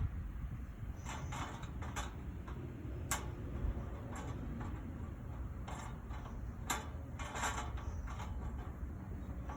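Hand socket ratchet clicking in short runs as bolts are worked loose, with a few separate knocks and clinks of tools and metal.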